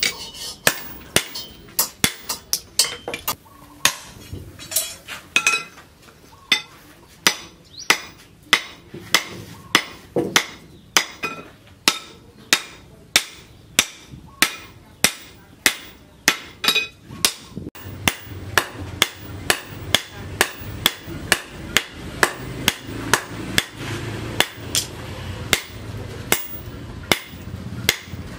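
Hammer forging a red-hot leaf-spring steel axe head on a steel post anvil: steady metal-on-metal strikes about two a second, some of them ringing briefly.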